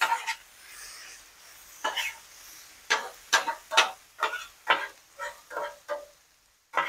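Metal spatulas scraping and clanking on the flat steel top of a Blackstone griddle as fried rice is flipped and mixed, over a faint sizzle. Sparse at first, then quick strokes about two a second from about three seconds in.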